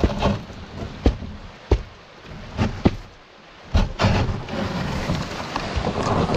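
Sharp knocks against a solo canoe's hull, seven or so in the first four seconds, amid splashing river water. From about four seconds in, a steadier rush of water and wind on the microphone takes over.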